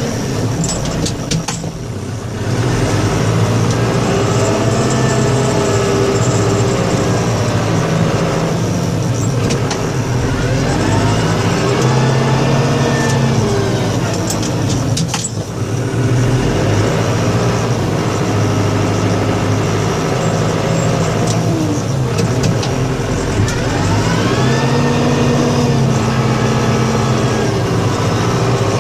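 Plow truck's engine running under load, its pitch swelling up and falling back in two long arcs as it is driven back and forth pushing snow.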